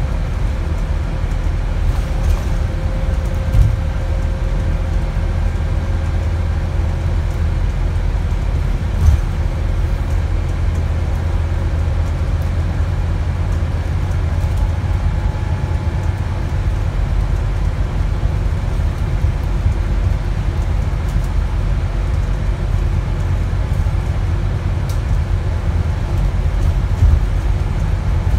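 Steady low engine and road rumble inside an Alexander Dennis Enviro400 MMC double-decker bus on a Scania chassis, heard from a passenger seat, with a few short knocks and rattles from the body.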